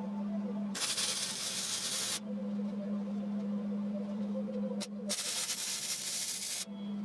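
Aerosol spray paint can spraying in two bursts, each about a second and a half long.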